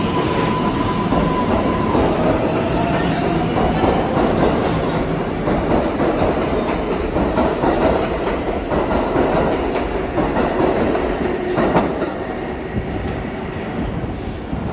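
New York City subway train running through an underground station: a steady rumble and clatter of wheels on rail. A tone rises in pitch a couple of seconds in, there is a sharp clank about twelve seconds in, and it grows a little quieter near the end.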